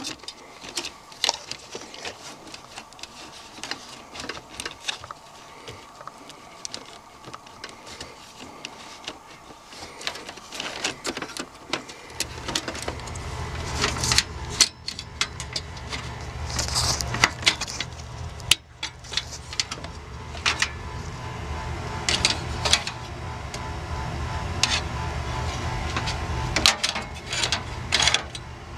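Irregular clicks, knocks and rattles of hands working inside a desktop computer's metal case, tugging on wiring and connectors and moving cables. From about twelve seconds in, a steady low hum runs underneath.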